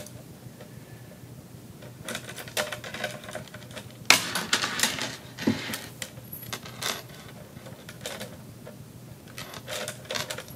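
A statue's long decorative chain clinking and rattling as it is handled and threaded around the base, in several short clattering bursts, the loudest about four seconds in.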